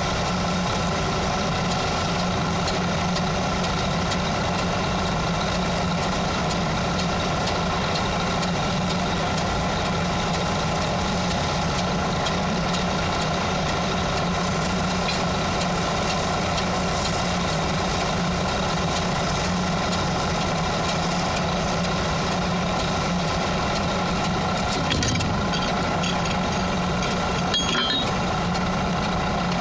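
An engine running steadily at one constant speed, with a hum that does not change, and a few short clicks near the end.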